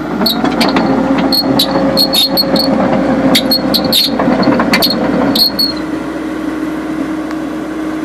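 Cat 312BL excavator's diesel engine working harder while its steel tracks give sharp metallic clanks and squeals, as when the machine travels. About six seconds in the clanking stops and the engine settles back to a steady idle.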